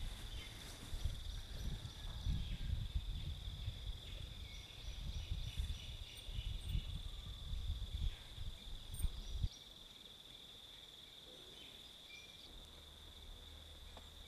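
Steady high-pitched insect chirring, like crickets, under a low uneven rumble that stops abruptly about nine and a half seconds in.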